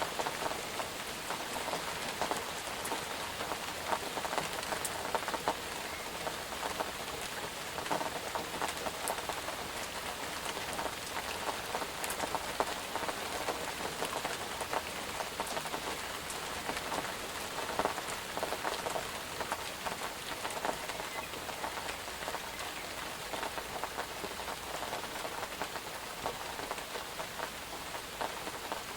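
Steady rain falling on a surface, a dense even hiss with many individual drops ticking and splattering throughout.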